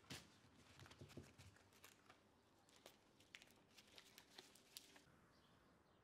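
Quiet crinkling and crackling of paper and aluminium foil handled by hand, a string of small irregular clicks that dies away about five seconds in.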